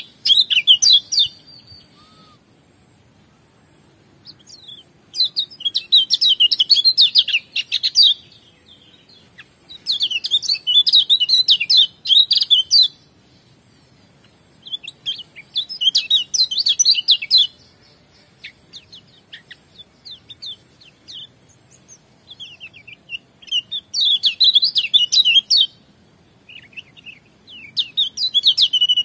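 Kecial kuning, a Lombok white-eye, singing its rapid, jumbled 'ngejos' song in high bursts of two to three seconds with pauses between them.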